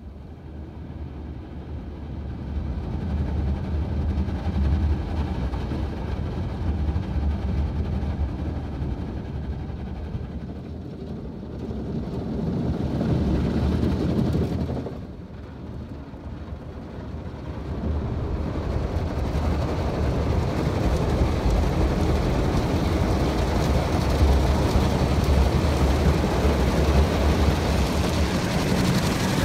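Automatic car wash working over the car, heard from inside the cabin: a steady rumble and wash of water spray and rotating brushes on the body and glass. It dips briefly about halfway, then comes back louder and fuller.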